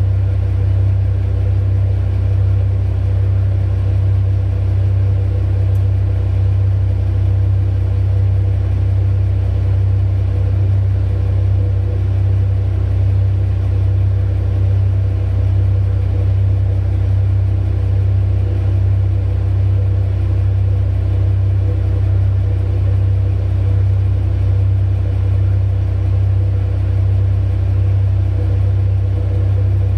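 Heavy mining diesel engines running at a steady pace, a deep, unchanging rumble.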